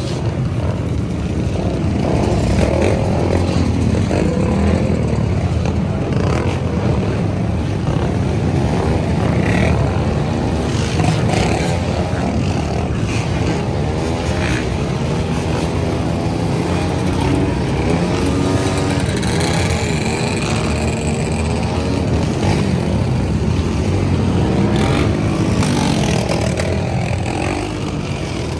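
A pack of dirt bike and ATV engines running and revving together, many overlapping revs rising and falling as the riders pass close by.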